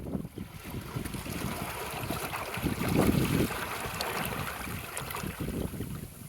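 Small waves lapping and washing over rocks with trickling water, while wind buffets the phone's microphone; one wash swells and peaks about three seconds in.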